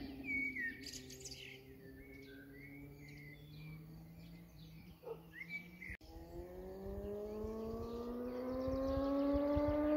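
Suzuki GSX-S motorcycle fitted with a cheap replica SC Project silencer, its engine faint at first under birds chirping, then from about six seconds in growing steadily louder and rising in pitch as it accelerates toward the listener.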